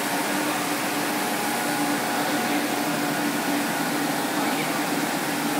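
Steady whir of a running rubber-hose production line, with a few held hum tones over an even machine noise.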